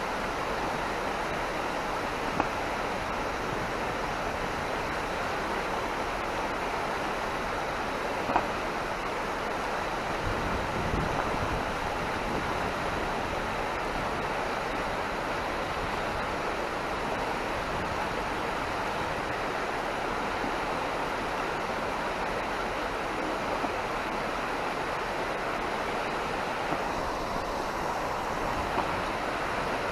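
Steady rushing of a flowing river, with a couple of faint brief ticks.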